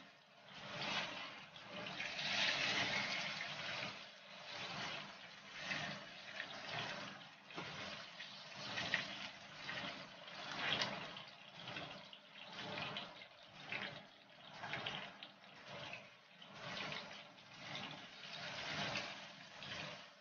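Fish frying in shallow oil in a pan, sizzling, with the sizzle swelling and fading about once a second.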